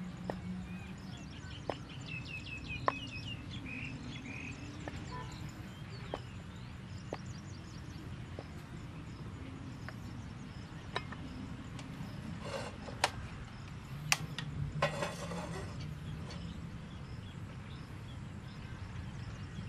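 Cleaver blade knocking sharply on a wooden chopping board at irregular intervals as tofu is cut into cubes. A bird chirps a few times a couple of seconds in, over steady outdoor background noise.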